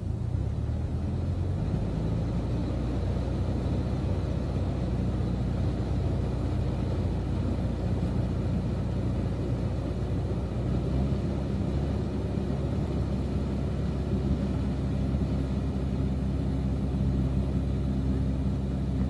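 Engine of a rice threshing machine running steadily at a constant speed, a loud even hum with a strong low drone.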